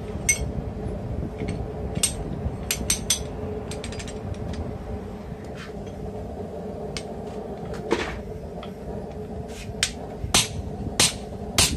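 Light clinks of steel as a slot punch is set into a hardy-hole punch guide, then, from about ten seconds in, a hand hammer striking the top of the punch, driving it into red-hot steel held in tongs, a little under two blows a second. A steady low hum runs underneath.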